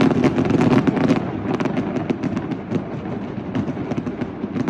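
Many fireworks going off at once: a dense, irregular barrage of sharp pops and crackles over a continuous low rumble of overlapping bangs, loudest in the first second or so.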